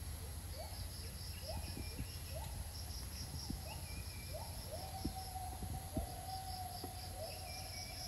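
Tropical forest ambience: a steady high insect drone and pulsing insect trills, with a series of short rising calls, one drawn out into a long held note about halfway through, and a few higher chirps over a low steady rumble.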